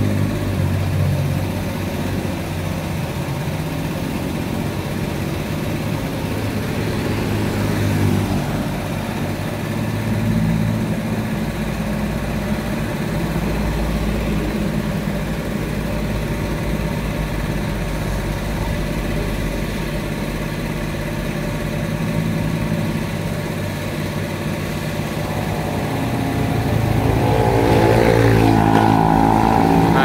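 Road traffic: engines of passing vehicles going by in a steady stream. Near the end a motor scooter and a car come past close by, louder, the scooter's engine note plainly heard.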